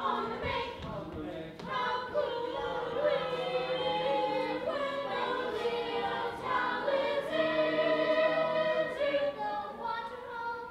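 A stage cast singing together as a chorus, several voices holding long notes that shift in pitch every second or so.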